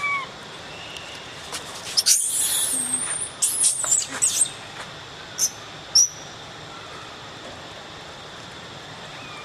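Long-tailed macaques squabbling: shrill, high-pitched screams that glide up and down, starting about two seconds in and lasting some two and a half seconds, then two short sharp squeaks.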